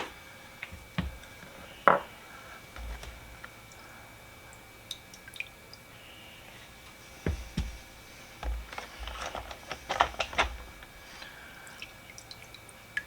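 Small wet ratchet parts being handled and set down on a rag: scattered light taps and clicks, with a few louder knocks about two seconds in and between about seven and ten and a half seconds.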